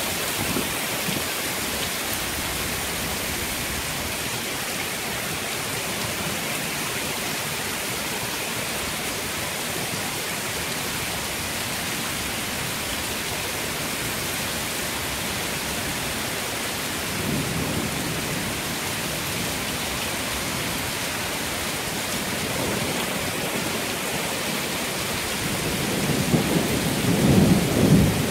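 Heavy rain falling steadily in a thunderstorm, an even hiss. A short low rumble of thunder swells about two-thirds of the way through, and a louder, longer rumble rises near the end.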